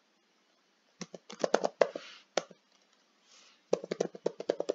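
Typing on a computer keyboard: a quick run of keystrokes starting about a second in, a pause, then a second run near the end.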